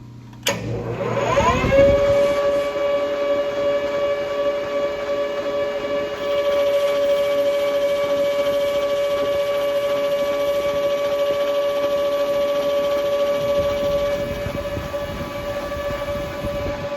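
Metal lathe spindle starting up: a high whine rises quickly in pitch and settles into a steady whine at speed. From about six seconds in it grows louder and fuller as the tool takes a turning cut on aluminium bar, easing off around fourteen seconds.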